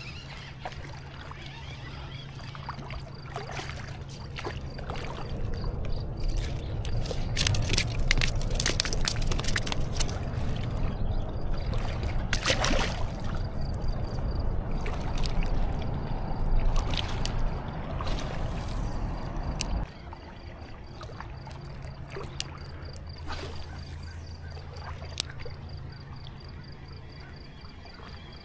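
Water sloshing and splashing with scattered clicks and rattles, as a fish just hooked on a crankbait is fought and brought in. It is loudest from a few seconds in and stops suddenly about two-thirds of the way through, over a low steady hum.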